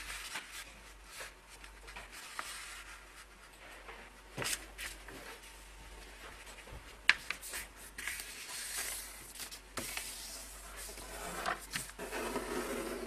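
A sheet of paper being folded and its creases pressed flat by hand: soft rubbing and rustling with a few sharp crinkles, the sharpest about seven seconds in.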